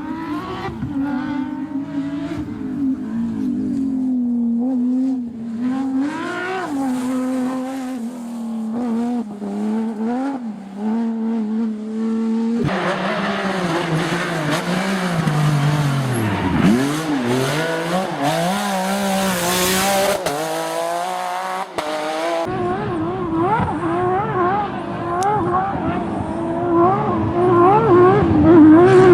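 Racing car engines at high revs, heard in three back-to-back takes, the pitch rising and falling through throttle changes and gear shifts. In the middle take the pitch drops steeply about sixteen seconds in, then climbs back.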